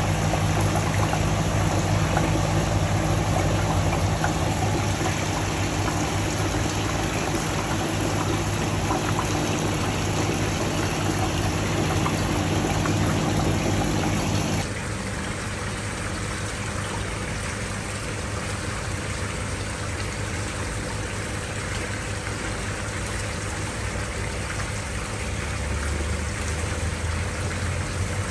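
Water bubbling and trickling in an aerated koi quarantine tub, with a steady low hum from the pump running under it. The sound shifts and drops a little about halfway through.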